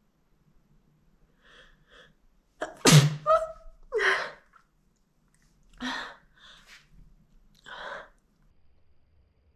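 A person sneezing wet, spraying sneezes. Two short catching in-breaths come first, then one loud, sudden sneeze about three seconds in, the loudest sound. Another loud burst follows a second later, then a few softer breathy bursts.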